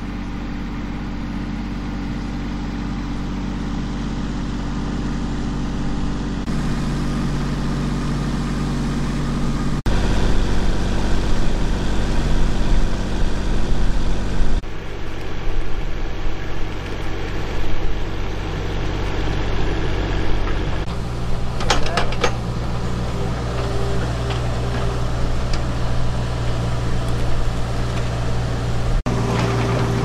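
Construction-site machinery engines running steadily at a constant pitch. The engine note shifts abruptly several times, and there are a few sharp knocks about two-thirds of the way through.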